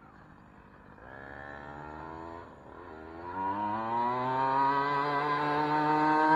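1/5-scale Primal RC Raminator monster truck's two-stroke gas engine at speed, the truck coming toward the listener from far down the road. The engine comes in about a second in, drops back briefly, then its note rises and grows steadily louder as the truck approaches.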